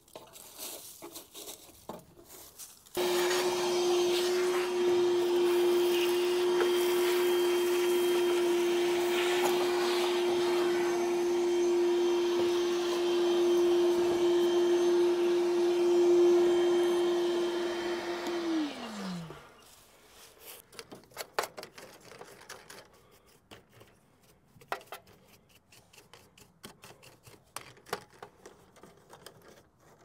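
A vacuum switches on about three seconds in and runs with a steady hum. About eighteen seconds in it is switched off, and its pitch falls as the motor winds down. Faint scattered clicks and rubbing follow.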